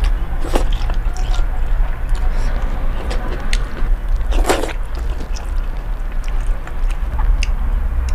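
A person slurping instant noodles off chopsticks and chewing wetly, with scattered smacking clicks and one loud slurp about four and a half seconds in, over a steady low hum.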